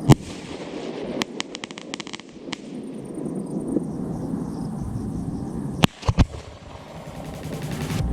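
Fireworks going off: a sharp bang at the start, a quick run of crackling pops about a second or two in, and three more bangs around six seconds in, over a steady background rumble.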